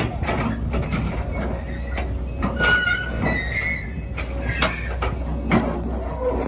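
Excavator working: its diesel engine runs steadily under repeated metal clanks and knocks. About midway, a brief high-pitched metallic squeal sounds.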